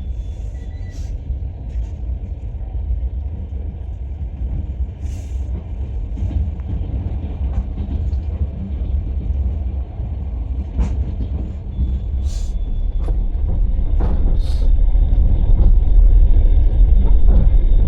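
Passenger train running on the rails, heard from inside the carriage: a steady low rumble of the wheels with scattered knocks and rattles, growing louder over the last few seconds.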